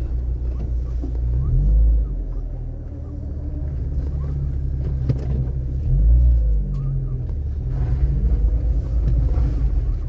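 Low rumble of a car's engine and tyres heard from inside the cabin, driving slowly over a block-paved street, swelling louder twice, around two seconds and six seconds in.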